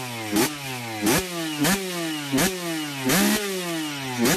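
Motorcycle engine revved again and again in sharp throttle blips, about six in a row, each jumping up in pitch with a burst of exhaust noise and then falling slowly back.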